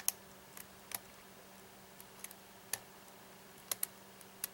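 Light, irregular metallic clicks of a lock pick and tension wrench working the pin stack of a Yale lock cylinder under light tension, about eight clicks scattered through, over a faint steady hum.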